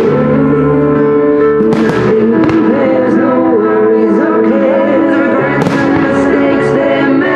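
Loud music with the bangs of aerial firework shells bursting over it, a couple about two seconds in and more around six seconds.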